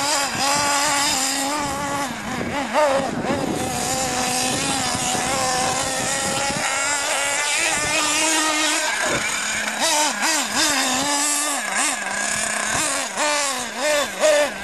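Small nitro engine of a radio-controlled off-road truck, a high buzzing note that revs up and down over and over as the truck is driven on the dirt.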